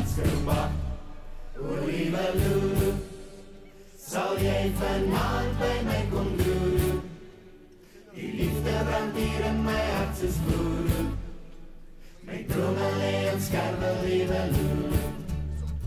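Background music with voices singing together, in phrases of about four seconds separated by brief quieter dips.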